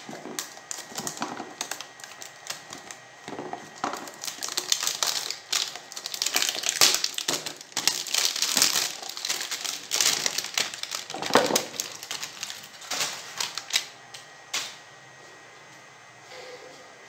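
Clear plastic wrapping film crinkling and rustling as it is handled and pulled around a cardboard box, with a few knocks of the boxes on the table. The crinkling stops shortly before the end.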